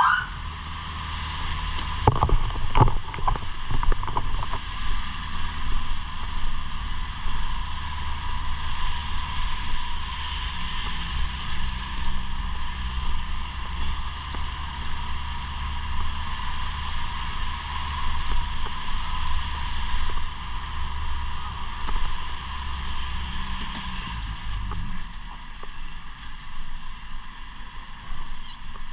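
Fire truck driving, its engine and road noise a steady rumble with a hiss above it, after the siren cuts off at the very start. A few knocks or rattles come between two and four seconds in, and the low rumble drops away about twenty-five seconds in.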